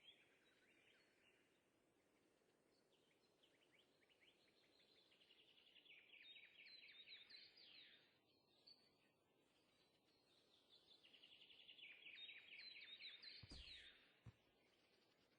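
A songbird singing faintly: two long songs of rapid, repeated downward-sweeping chirps, each building in loudness, with a short knock near the end.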